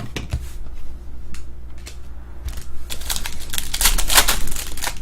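Trading cards and their pack wrappers being handled: a few light flicks and slides, then from about three seconds in a dense, crisp rustling as packs are torn into and cards flipped through.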